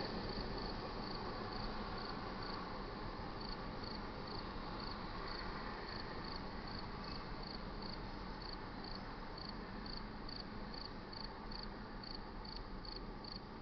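Crickets chirping in a steady rhythm, about three chirps a second, over the low rumble of a receding freight train that slowly fades.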